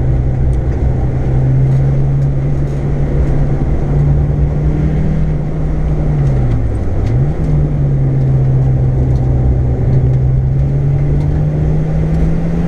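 Car engine running at steady revs, heard inside the cabin of a lapping race car; the revs drop sharply and pick straight back up about seven seconds in, then rise slowly near the end.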